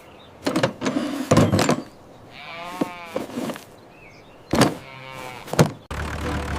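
A farm animal's long wavering call, with a few short knocks before and after it; near the end a tractor engine cuts in suddenly and runs steadily.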